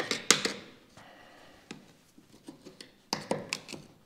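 A small hand tool scraping and clicking against the car's metal window trim as dirt and old nest debris are picked out. The sharp scrapes come in two short clusters, near the start and again about three seconds in, with a few light ticks between.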